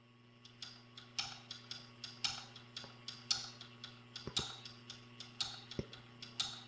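Faint hi-hat tapping out a quick, even beat at the start of a rock song, over a low steady hum.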